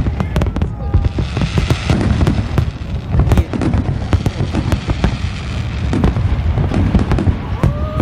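Fireworks display: aerial shells launching and bursting in quick succession, a dense run of booms mixed with crackling.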